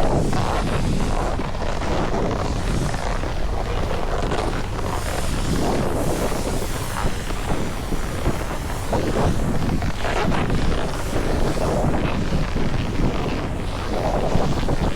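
Wind rushing over the microphone, a steady low rumble that swells and falls in gusts, with no speech.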